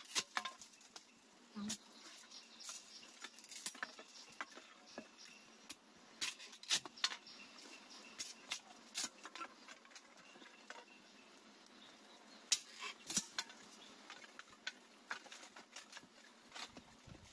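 Scattered light clicks, taps and snaps of dry bamboo kindling being split and handled with a knife, irregular and faint, with a few sharper snaps partway through.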